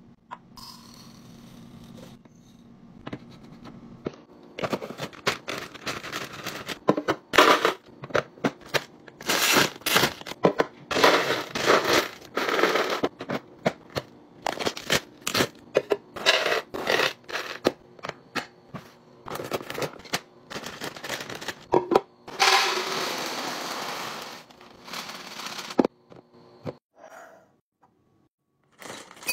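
Hands restocking kitchen containers: plastic snack bags rustling, dry food rattling into containers, and glass jars and lids clinking. These come as a busy run of short scrapes, clicks and crackles, with a longer steady rush about three quarters of the way through.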